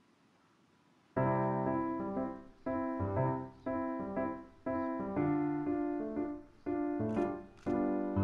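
Background piano music: after a faint first second, chords are struck in a steady rhythm, each ringing and fading before the next.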